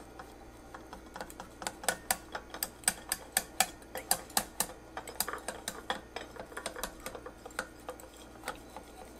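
A thin metal blade clicking and scraping against the inside wall of a ceramic ramekin as it is worked around the edge to loosen a brownie. The clicks come irregularly, several a second, busiest in the middle.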